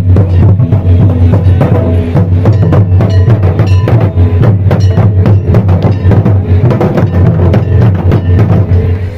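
Traditional Santali barrel drums played loudly by several drummers, hands and sticks striking in a fast, dense rhythm, over a steady deep hum.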